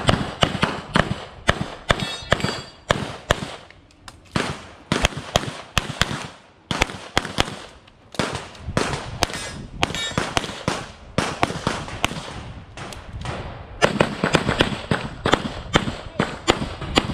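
Rapid strings of 9mm pistol shots from a SIG Sauer P320 X5 Legion, fired in fast pairs and runs with short breaks between strings.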